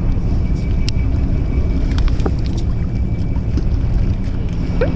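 Steady low rumble of a small fishing boat at sea, with wind buffeting the microphone and a few light clicks scattered through.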